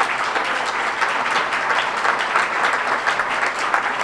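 Audience applauding: a steady, dense clapping from many hands.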